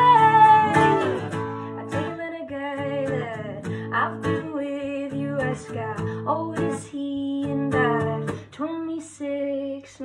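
A woman singing while strumming an acoustic guitar, solo and unplugged, with the guitar carrying on through short breaks in the vocal line.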